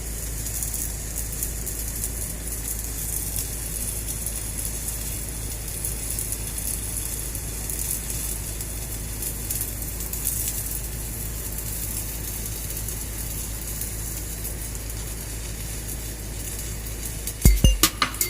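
Welding arc crackling and sizzling steadily over a low electrical hum.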